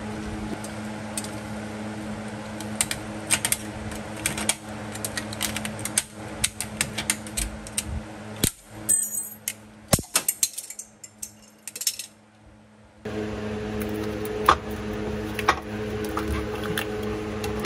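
Hand tools (a screwdriver and a utility-knife blade) clicking and scraping against the rubber and metal sleeve of a worn-out rear differential bushing as it is pried and cut out of the subframe. A steady low hum runs underneath. The hum drops out for a few seconds about halfway through.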